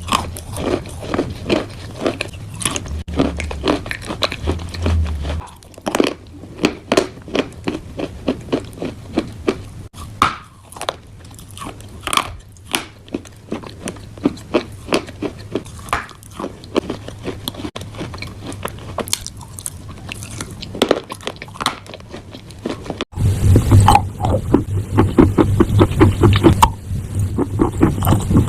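Chalk and clay crunching up close: a dense, uneven run of crisp cracks and crackles. About 23 s in, the sound cuts and comes back louder over a low steady hum.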